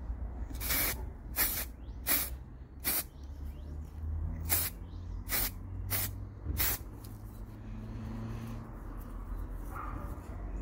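Aerosol spray can sprayed in eight short bursts, each a brief hiss, during the first seven seconds, with a low rumble underneath.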